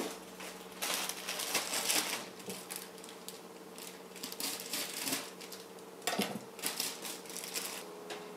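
Salad leaves being handled and laid out for plating: a sharp knock at the start, then two spells of crisp rustling and light clatter, over a faint steady hum.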